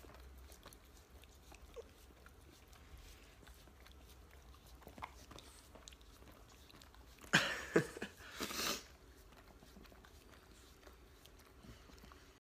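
A dog licking a person's face: faint wet licks and lip smacks, with a louder, breathy flurry about seven seconds in that lasts a second and a half.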